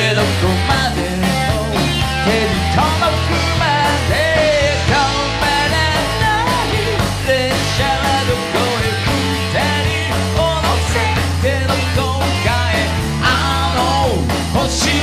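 Live rock band playing at full volume, with a male lead singer singing over the band, his held notes wavering with vibrato.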